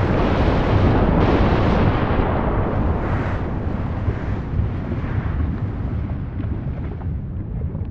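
Volcán de Fuego erupting: a loud, deep rumbling roar from the summit explosion. It swells again about a second in, then slowly dies away.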